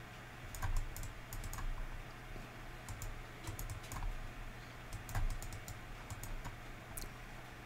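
Computer mouse clicking irregularly in short runs, stepping the on-screen amplitude and phase controls, over a steady low hum.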